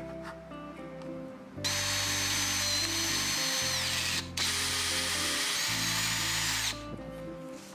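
Handheld electric drill with a twist bit boring into plywood: two runs of about two and a half seconds each with a short stop between them, a high motor whine over the noise of the bit cutting.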